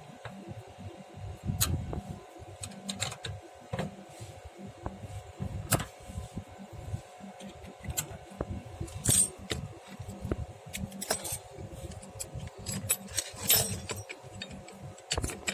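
Scattered metallic clicks and light jingling from a hex (Allen) key and tools being handled at a split air-conditioner's service valves, over a faint steady hum.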